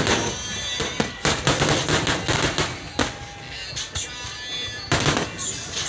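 Aerial firework shells bursting in quick succession, a string of sharp bangs with the loudest near the start and about five seconds in, over music playing.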